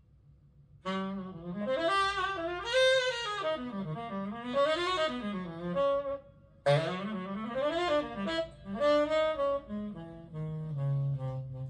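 Jazz ballad introduction played from a vinyl record: a saxophone plays a slow melodic line over double bass, in two phrases with a short break about six seconds in.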